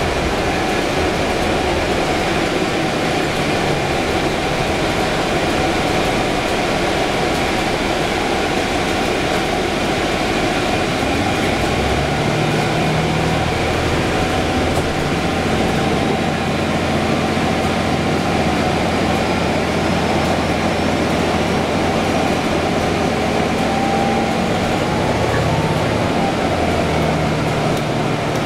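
Cabin noise inside a 2011 Orion VII hybrid city bus on the move: a steady rumble of road and drivetrain noise with a hiss like ventilation, and a low engine hum that shifts in pitch about twelve seconds in. A faint high whine rises slowly through the middle.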